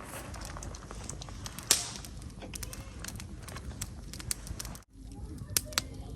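Wood fire crackling, with scattered sharp irregular pops and one louder pop about two seconds in.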